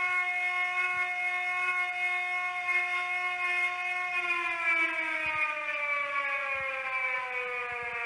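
Civil defence warning siren holding a steady tone, then about four seconds in its pitch begins to fall slowly as it winds down.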